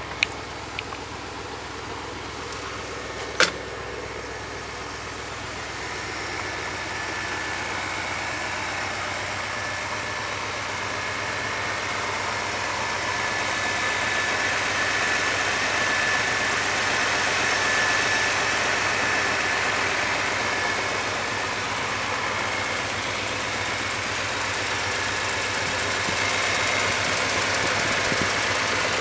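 Jeep CJ5's 327 small-block V8 idling steadily, growing louder as it is approached. There is a single sharp click about three and a half seconds in.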